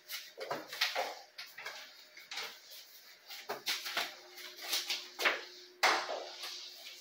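Irregular clicks and rustles of a string of Christmas fairy lights being handled and draped over the plastic branches of a small artificial Christmas tree, the wire and small bulbs tapping and brushing against the needles; the sharpest click comes a little before the end.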